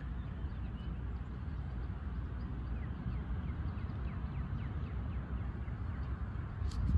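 Steady low outdoor rumble with a few faint, short falling bird chirps around the middle, and a sharp click near the end. No siren tone is sounding yet.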